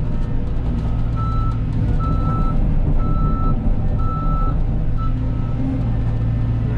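Cat 313 excavator's diesel engine running steadily while its travel alarm beeps, a high single-pitched beep about once a second that starts about a second in and stops near the end.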